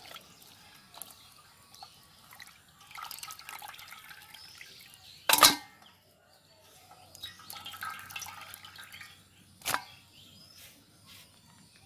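Water sloshing and splashing as whole fish are rubbed clean by hand in a steel basin. There are two sharp knocks, the loudest about halfway through and another near the end.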